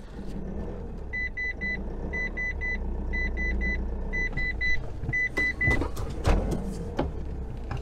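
Reversing beeps in the cab of a pickup truck reversing: high beeps in groups of three, about one group a second, over the low steady hum of the idling engine. The beeping stops just before six seconds in, followed by a few knocks.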